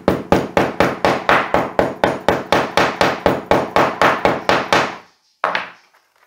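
Chasing hammer's wide flat head tapping packed red casting clay in a metal casting flask, a quick steady rhythm of about five blows a second with a slight ring, compacting the clay around the ring pattern. The tapping stops about five seconds in, followed by a brief scrape.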